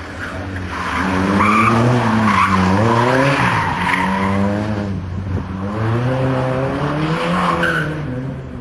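A small race car's engine revving hard through the corners, its pitch climbing and dropping several times as the driver works the throttle and gears. Tyres squeal in short bursts as the car slides through the turns.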